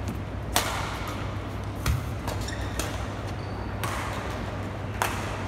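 Badminton rally: rackets striking a shuttlecock, with four sharp hits about a second to a second and a half apart. The second hit comes with a low thud. A steady low hum runs underneath.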